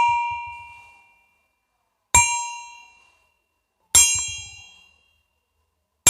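A metal bell struck again and again, each strike ringing out and fading within about a second. The ring of an earlier strike dies away at the start, then come two clear strikes about two seconds apart, and another right at the end.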